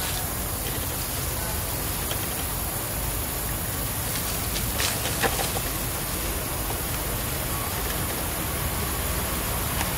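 Steady low rumble and hiss of outdoor background noise, with a few brief clicks about halfway through.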